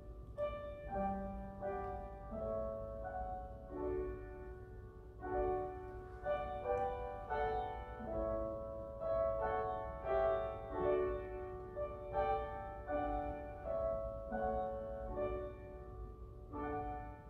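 Slow piano music, held chords and single notes changing about once a second, over a low steady hum.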